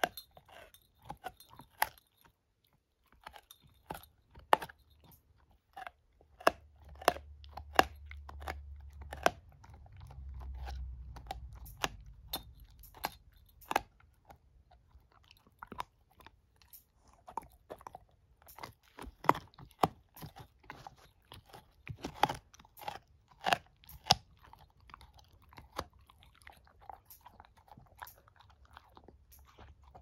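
A shepherd-mix puppy gnawing a chew stick: irregular crunching and cracking of teeth on the chew, with a short lull about two seconds in. A low rumble runs under the chewing for several seconds near the middle.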